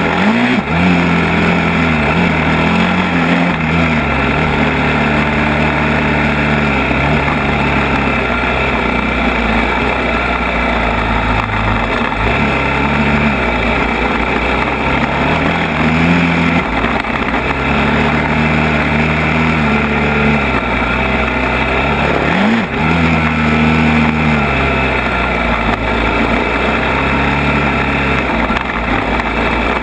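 ATV engine running hard on a rough trail, its pitch rising and falling again and again as the throttle opens and closes, with a short drop in revs about two-thirds of the way through.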